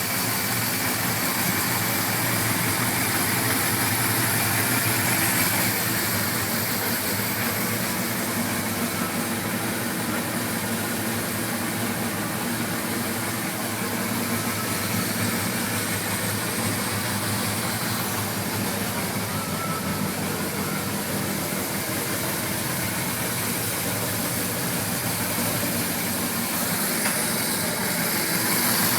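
1981 Suzuki GS850G's inline four-cylinder engine idling steadily, its valve-train clack cured by new cam buckets and reshimmed valves. An intermittent tick remains, which the owner likens to a spark plug wire arcing.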